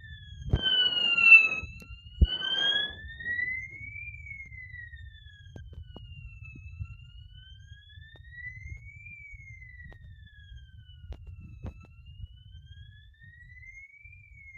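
Fire alarm siren sounding during a test, with a slow wail that rises and falls in pitch about once every five seconds. Loud bursts of noise and a sharp click come in the first three seconds, and after them the wail carries on more faintly.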